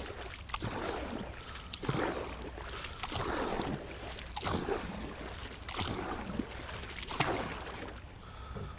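Kayak paddle strokes in the water: a regular swish and splash of the blades, about one stroke every second and a half.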